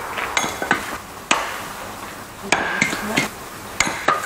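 Axe splitting firewood: several sharp chopping strikes on wood, unevenly spaced.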